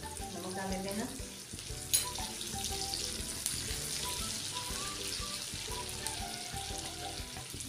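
Sliced onions sizzling steadily in hot mustard oil in an iron kadhai, stirred with a wooden spatula, with one sharp knock about two seconds in.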